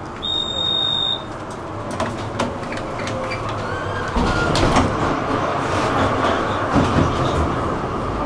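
A tram's steady door-warning beep lasting about a second, then a couple of knocks as the doors close. From about four seconds in the tram moves off, its rumble growing louder with rattling and clicks from the wheels on the track.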